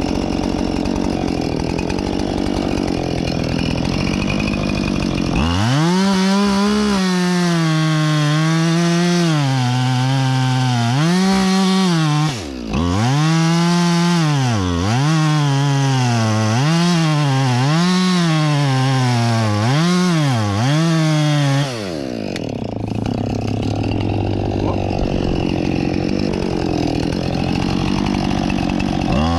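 Husqvarna 576 XP two-stroke chainsaw idling, then run up to full throttle about five seconds in and cutting into a poplar trunk, its revs dipping and recovering about once a second as it works through the cut. It drops back to idle for the last several seconds and revs up again right at the end.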